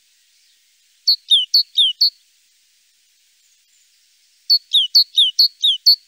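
Great tit singing two phrases of its repeated two-note song, a short high note alternating with a falling lower note about four notes a second, about a second in and again near the end.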